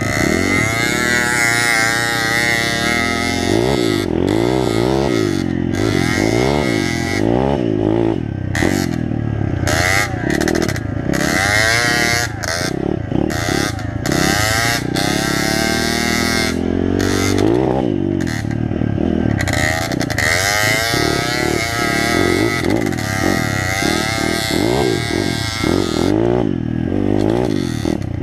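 Dirt bike engine, close to the microphone, revving up and easing off again and again as it rides a rough off-road track, its pitch rising and falling every second or two.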